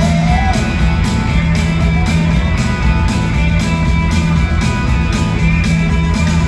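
A rock band playing live through an arena PA, heard from the audience: guitar-led, with bass and drums keeping a steady beat.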